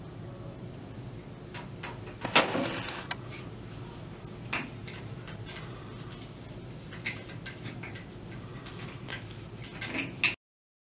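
Objects being handled on a tabletop: scattered clicks and knocks, a louder scraping clatter a little over two seconds in, and another sharp knock near the end, over a low steady hum. The sound cuts off abruptly just before the end.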